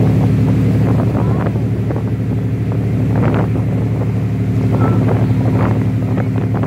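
A boat's engine drones steadily with a stack of low tones, over the rushing and splashing of its wake churning alongside the hull.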